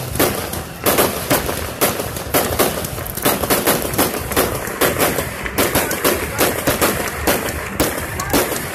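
Aerial fireworks going off in quick succession: a dense, irregular string of sharp bangs and crackles, several a second, with no pause.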